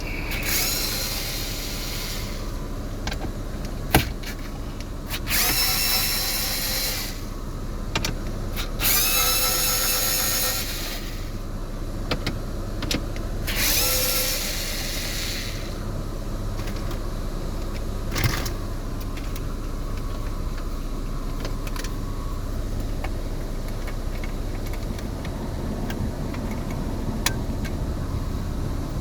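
Cordless power screwdriver whirring in four bursts of about two seconds each, spinning up at the start of each burst as it backs out the screws of a Ford Taurus dashboard screen panel. Under it runs the steady low hum of the car idling, with a couple of sharp clicks.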